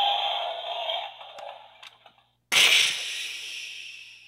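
A sustained sound fades away over the first two seconds. Then, about two and a half seconds in, a sudden loud thunderclap sound effect dies away over about two seconds, marking the blackout of the park's power.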